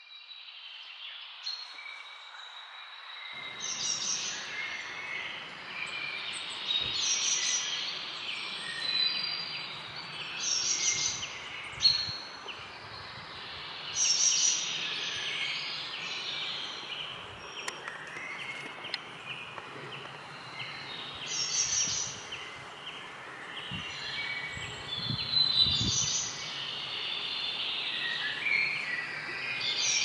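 Woodland birds chirping and singing: many short high calls over a soft background hiss, with louder song phrases every few seconds.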